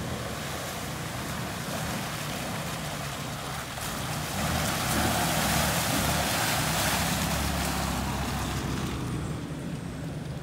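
4x4 engine running under load as the vehicle drives through mud and water, with a rushing, splashing noise that swells about halfway through and then eases.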